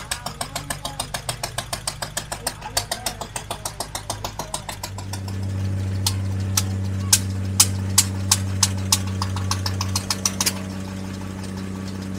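Antique gas engines running. First comes an even, rapid ticking of an engine, about five beats a second. About five seconds in, a steadier, louder low engine hum takes over, with sharp irregular clicks over it.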